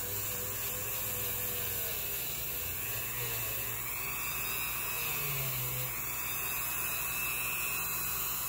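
Dremel rotary tool running at high speed with a wire brush wheel, scrubbing rust off a steel shotgun barrel: a steady high-pitched whine that doesn't change.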